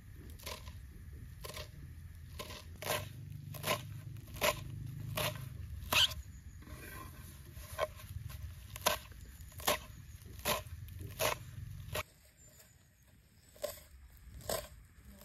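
A kitchen knife chopping fresh herbs against the bottom of an earthenware bowl, sharp strikes at about one or two a second.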